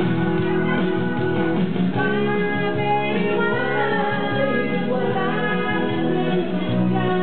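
A woman singing into a handheld microphone over instrumental music backing; the accompaniment plays alone at first and her voice comes in about two seconds in.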